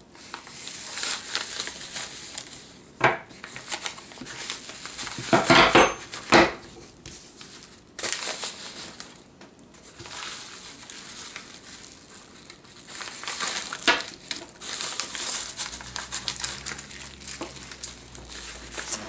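Padded bubble mailer crinkling and rustling as it is handled and unpacked. A few sharp knocks, loudest about five or six seconds in, come from paper-wrapped rolls of coins being set down on a wooden table.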